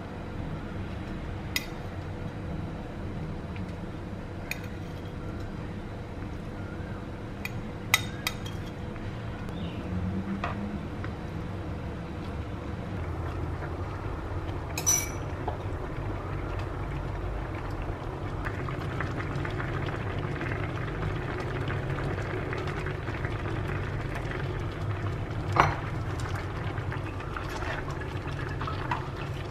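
A red broth stew simmering in a nonstick frying pan, with sharp clinks of a metal spoon against the pan and plate every few seconds as ingredients go in and are stirred.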